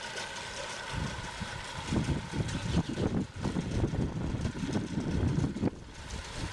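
Outboard motor on a small pleasure boat idling steadily, with a louder, uneven low rumble from about a second in until near the end.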